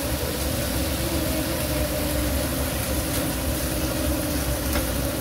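Kitchen range hood fan running with a steady hum.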